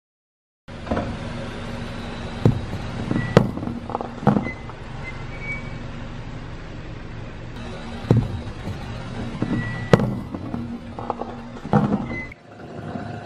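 Crumbly, chalky objects cracking and crunching under a car tyre on concrete: several separate sharp cracks, over background music.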